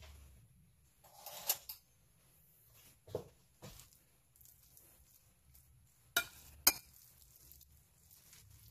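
Metal spoon clinking and scraping against a ceramic bowl while scooping sweet red bean paste: a few separate sharp clinks, the loudest two close together about six seconds in.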